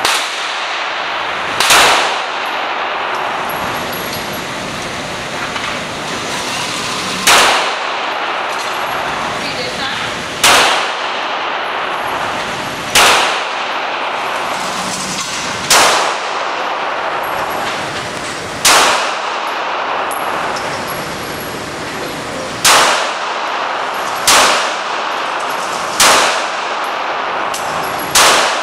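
9mm pistol fired one shot at a time, about ten shots at uneven intervals of roughly one and a half to five seconds, each sharp bang ringing out in the echo of an indoor range, over a steady background hiss.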